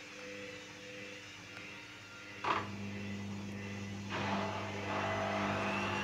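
Hoover Dynamic Rapid washing machine during an unbalanced spin: a sharp click about two and a half seconds in, then the motor starts a steady hum and the drum turns, getting louder about four seconds in. A whine rises in pitch near the end as the drum speeds up.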